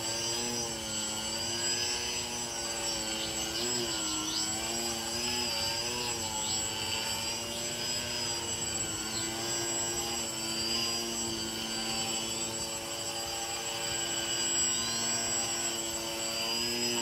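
Small radio-controlled 3D aerobatic airplane's motor and propeller whirring as the plane hovers nose-up. The pitch rises and falls with throttle corrections, over a steady high whine.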